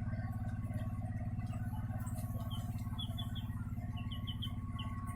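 A steady low mechanical hum, like a small motor running, with short high chirps now and then.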